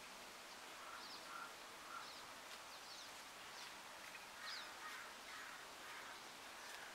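Faint bird calls: short high chirps about once a second, joined by harsher, lower calls from about four and a half seconds in.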